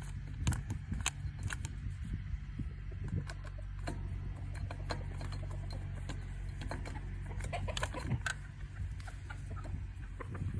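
Chickens clucking in short, scattered calls over a steady low hum.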